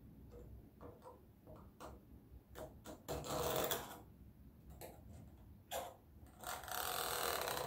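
Scratching of drawing strokes: a few light taps and clicks, then two long scratchy strokes of about a second each, the first about three seconds in and the second near the end.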